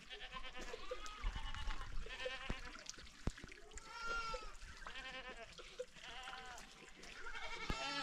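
A flock of goats and sheep bleating, many calls overlapping one another, with a few sharp knocks among them.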